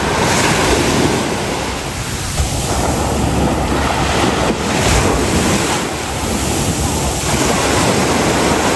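Sea surf washing onto a sandy beach, swelling and easing every few seconds, with wind buffeting the microphone.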